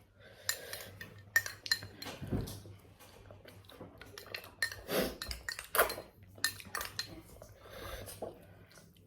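Scattered clinks and knocks of plates and utensils, with chewing sounds, while eating at a table.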